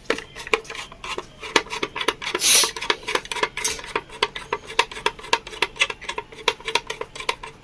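A screwdriver backing a screw out of a table fan's metal housing: a quick, even run of small metal clicks with light scraping, and a short rasping scrape about two and a half seconds in.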